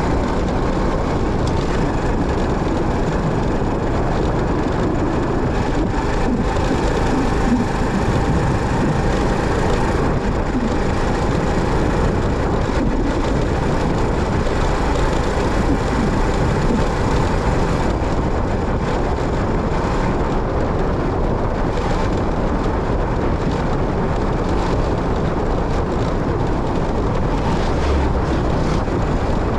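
Motorcycle on the move: a steady rumble of engine, tyres and wind.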